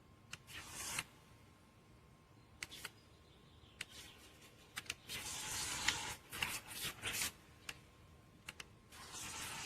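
Handling noise: rustling and scraping with sharp clicks, coming in bursts about a second in, again from about five to seven seconds, and near the end.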